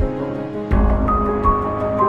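Background music: a slow melody of held notes over a soft low beat about every three-quarters of a second, growing fuller and a little louder about two-thirds of a second in.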